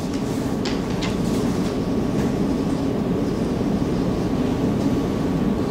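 Steady low room rumble, with a few faint short scratches of a marker writing on a whiteboard in the first couple of seconds.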